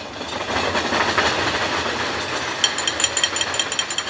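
A drum roll made by a room full of people drumming rapidly on wooden dining tables. About two and a half seconds in, a quick metallic clinking joins it, about five taps a second, like cutlery or a metal cup struck on glass.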